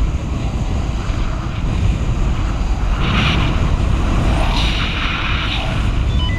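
Wind noise on the microphone of a paraglider in flight: a steady low rumble with a hiss that grows stronger about halfway through as airspeed rises in the turn.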